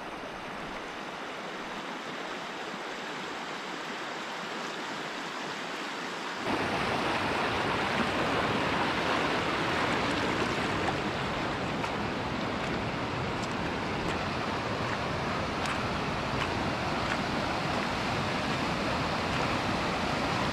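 Stream water rushing steadily; about six seconds in it turns suddenly louder and deeper.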